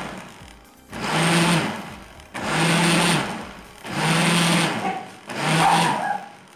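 Household blender run in pulses of about a second, four times with short pauses between, its motor churning grated bar soap and water into a thick foam.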